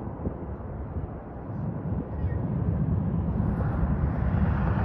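Road and wind noise from a moving car: a steady low rumble that grows louder and brighter about two to three seconds in.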